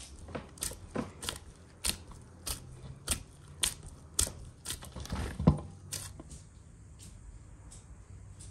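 Dough being kneaded by gloved hands in a bowl: a run of sticky slaps and squelches about two a second, stopping after about six seconds.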